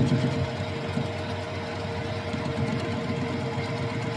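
Manual metal lathe running steadily, a constant mechanical hum with a steady whine held throughout.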